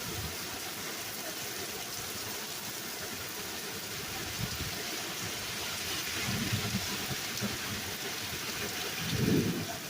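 Steady heavy rain falling as an even hiss. A low rumble swells about six seconds in, and a louder one comes near the end.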